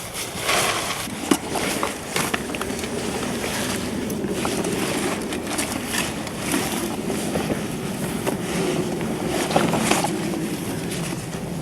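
Wind buffeting the microphone in a steady rush, with scattered rustles and knocks throughout.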